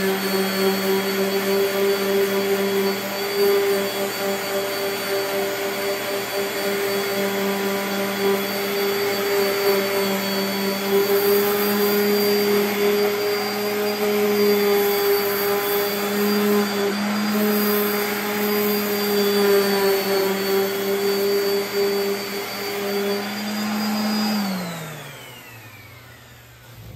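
DeWalt 5-inch random orbital sander running steadily with a hum and hiss as it sands the edge of a walnut board. Near the end it is switched off and its pitch falls as it spins down.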